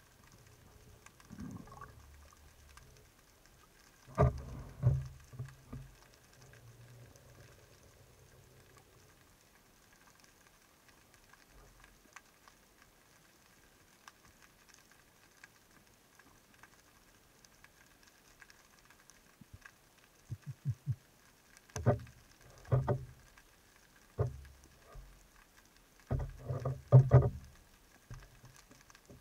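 Underwater knocks and thuds, muffled through the water, coming in short clusters of a few quick strokes: once early on, then several times near the end.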